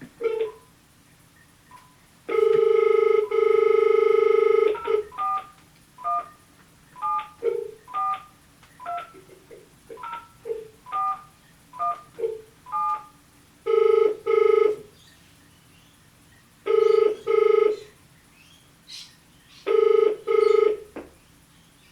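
Telephone line sounds of a call being placed: a steady dial tone for about two and a half seconds, then a quick series of keypad tones as a number is dialled, then three double-pulse ringback tones as the call rings out.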